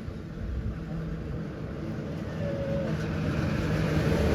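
A motor vehicle's engine rumbling and growing steadily louder as it approaches.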